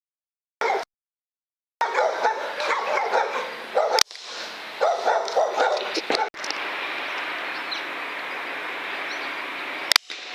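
Dog barking and yipping in short, broken calls for several seconds, with a sharp click partway through, then giving way to a steady hiss.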